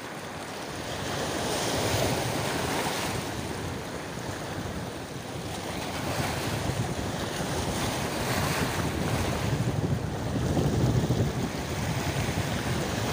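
Wind buffeting the microphone over the rush and splash of water along the hull of a small boat under way.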